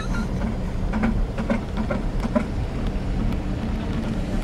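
Steady low rumble of a car's engine and tyres, heard from inside the cabin as it drives slowly down a steep street.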